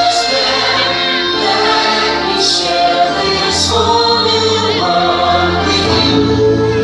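Choral music from a fireworks-show soundtrack: a choir singing long held notes over the music, with no firework bangs standing out.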